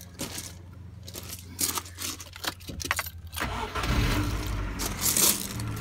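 Keys jangling and small clicks at the ignition, then the Rover 25's 1.4 petrol engine cranks and catches about three and a half seconds in and settles into a steady idle. This is the first start after a fuel filter change and priming, and it starts without trouble.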